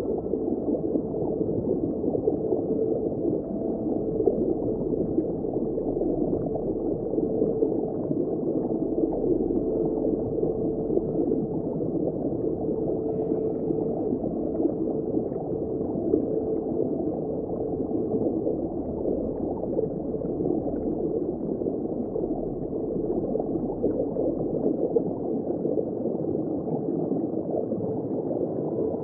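Underwater ambience of surf churning over rocks: a steady, muffled rush of moving water heard beneath the surface.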